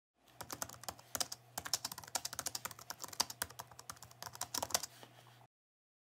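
Keyboard typing sound effect: rapid, irregular key clicks over a faint low hum, stopping shortly before the end.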